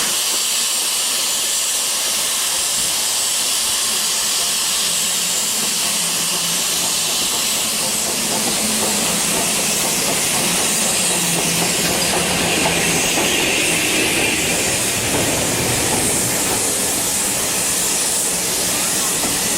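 Steam locomotive letting off a loud, steady hiss of steam.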